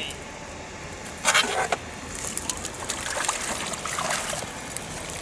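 A splash at the water's surface about a second in, followed by dripping and trickling water.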